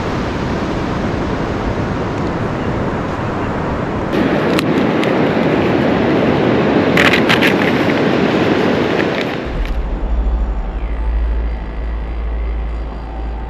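Wind rushing over the microphone on an open beach, with surf behind it and a few sharp clicks near the middle. About two-thirds of the way through it gives way to a quieter, steady deep rumble.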